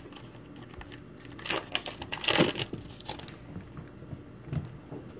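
Crinkling and tearing of a trading-card pack wrapper being ripped open by hand, loudest a little before halfway through.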